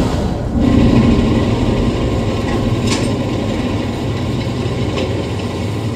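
Propeller aircraft engines droning steadily, heard from inside the fuselage, with mechanical rattling and two sharp clicks, about three and five seconds in.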